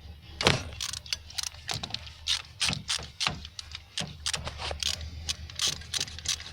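Hand tools clicking and clinking against metal while spark plugs are being worked on: a rapid, irregular run of sharp clicks starting about half a second in, over a faint low hum.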